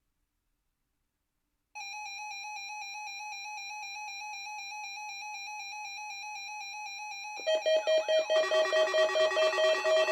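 Zoneguard weather radio receiver sounding its alert: a steady buzzy electronic tone starts about two seconds in. At about seven and a half seconds it gives way to a louder, rapidly pulsing multi-tone alarm, set off by the National Weather Service's weekly warning-alarm test.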